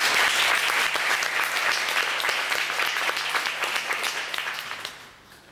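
Audience applause: dense hand-clapping that thins out and dies away near the end.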